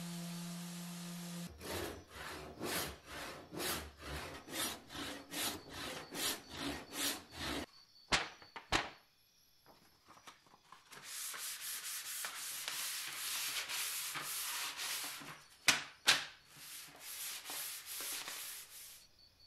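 A power sander's hum stops about a second and a half in. A handsaw then cuts through a wooden axe handle in steady back-and-forth strokes, about two a second. After a few knocks and a short pause, sandpaper rubs along the wooden handle, first as a steady hiss and then in back-and-forth strokes, with two sharp knocks in between.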